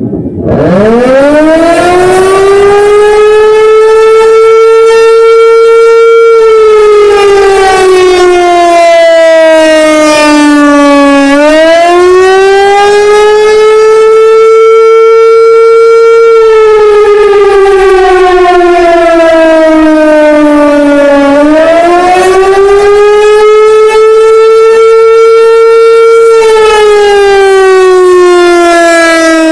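American Signal T-128 electromechanical civil defense siren sounding an attack signal, very loud. Its single tone winds up from low to a steady high pitch, holds a few seconds, then slowly falls. This happens three times, each cycle about ten seconds long, and the sound stops abruptly at the end.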